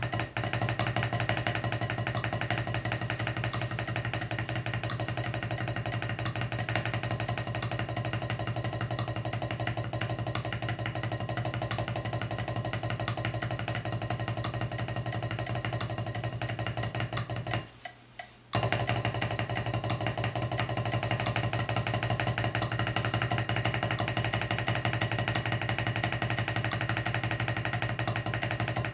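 Wooden drumsticks playing fast single strokes, alternating hands, on a rubber drum practice pad at 176 bpm, at a steady, even rate over a steady musical backing. Everything cuts out for under a second about two-thirds of the way in, then resumes.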